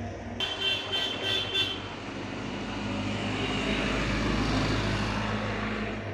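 Street traffic noise. A horn toots four times in quick succession, then the traffic noise swells and eases off over a steady low hum.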